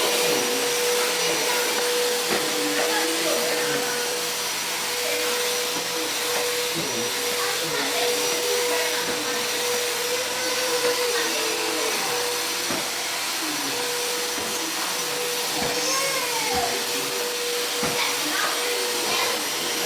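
A steady electric motor whine with rushing air, holding one constant pitch throughout, with faint voices and a few light knocks underneath.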